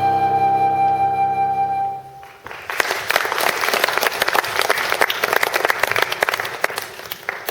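The last held chord of a song's accompaniment ends about two seconds in, and an audience breaks into applause for the rest of the time.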